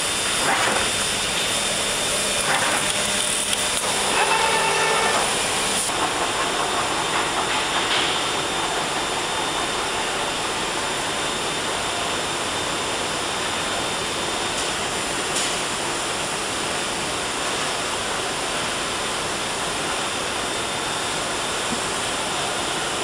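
Lectra CNC fabric cutting machine running: a steady airy hiss, typical of the suction under its cutting bed, with short whining tones from the moving cutting head a few times in the first six seconds.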